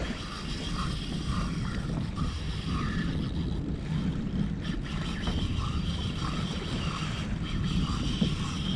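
Wind buffeting the microphone over water sloshing against a kayak hull, with a faint tapping repeating about twice a second.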